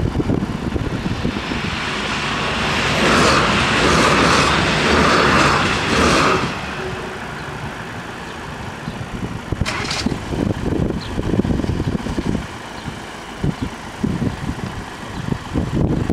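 A vehicle passes close by, swelling up and fading over about four seconds, with gusts of wind buffeting the microphone throughout.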